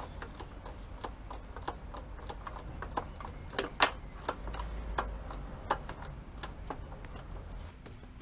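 A run of sharp clicks and light knocks at uneven spacing, roughly two to three a second. The loudest pair comes a little before four seconds in, over a low steady hum.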